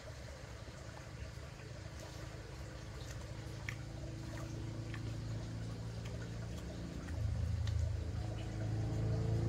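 A vehicle engine running and drawing nearer: its low hum grows steadily louder and steps up about seven seconds in. A few faint clicks sound over it.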